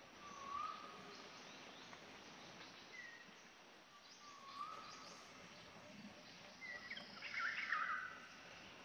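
Birds chirping in short whistled notes, a few seconds apart, then a busier, louder run of chirps about seven seconds in, over a faint steady hiss.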